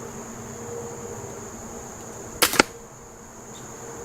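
Benjamin Trail NP nitro-piston break-barrel air pistol, fitted with a baffled moderator, firing a single shot: a sharp crack about two and a half seconds in, followed a fifth of a second later by a second sharp crack.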